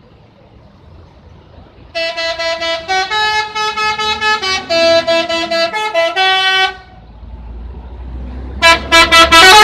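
Bus 'telolet' melody horn playing a quick tune of changing notes for about five seconds. A low rumble follows, and near the end comes a rapid run of short, loud horn toots.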